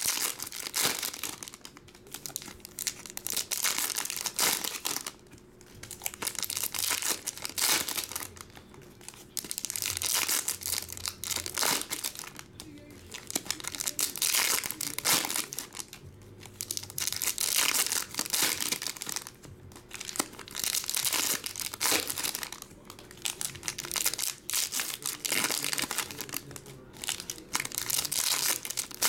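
Foil trading-card pack wrappers being torn open and crinkled by hand, in repeated bursts of crackling a second or two long with short pauses between them.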